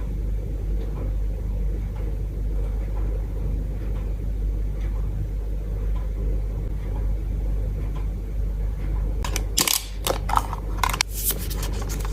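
Card packaging being handled over a steady low hum: a few faint ticks, then about nine seconds in a stretch of sharp, irregular rustling and clicking.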